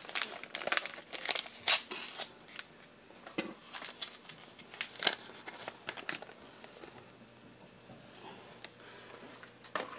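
A paper packet of instant gravy mix being crinkled and torn open, a run of sharp crackles and clicks over the first six seconds or so, then quieter.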